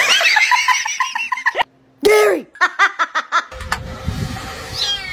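A baby laughing in quick giggling bursts, with a longer rising-and-falling squeal about two seconds in. After about three and a half seconds this gives way to a steady low rumble, with a short high falling call near the end.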